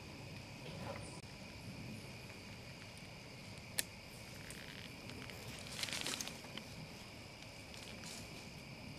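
Steady, faint chirring of crickets and other insects, with a single sharp click a little under four seconds in and a brief burst of rustling around six seconds.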